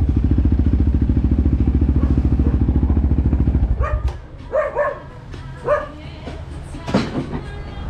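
Four-wheeler (ATV) engine running with a fast, even pulse, cutting off about four seconds in. A dog then barks a few short times.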